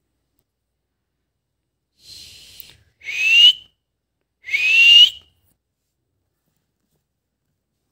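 Two loud, short whistles, each rising in pitch, a little over a second apart, with a faint hiss just before the first.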